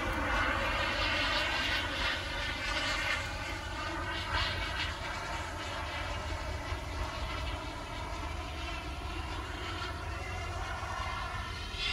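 Miniature jet turbine of an Aerofoam T-45 RC model jet running in flight overhead, a steady jet whine whose pitch bends slowly as the plane passes, a little fainter later on as it moves off.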